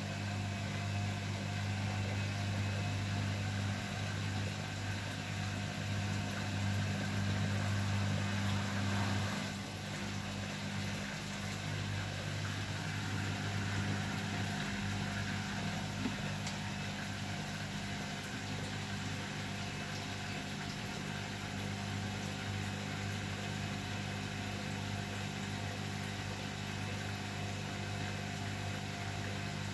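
Beko WML 51211 EL+ washing machine running with a steady mechanical hum, a little quieter from just before ten seconds in.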